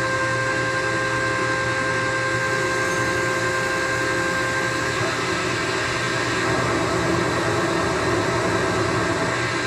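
Static hiss from a homebuilt one-transistor regenerative radio as its tuning dial is turned, with a steady whistle that fades about halfway through.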